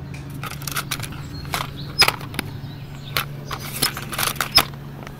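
A string of about a dozen sharp, irregular clicks and knocks over a low steady hum.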